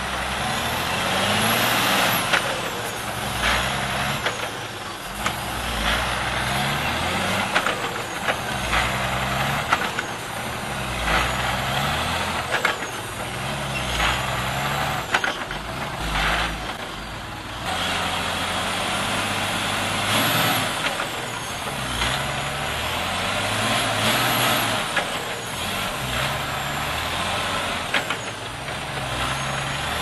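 Diesel engine of a loaded logging truck revving up and falling back over and over as the truck works its drive wheels through deep mud, with occasional knocks.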